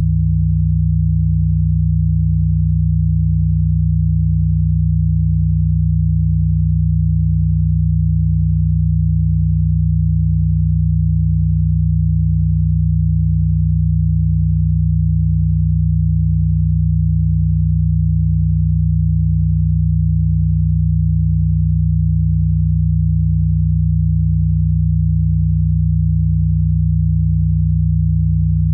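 Steady low electronic sine tone, a healing-frequency drone, held without change; the sound sits below about 200 Hz.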